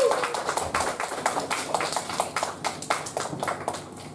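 Audience applauding, a dense patter of many hands clapping that dies away toward the end.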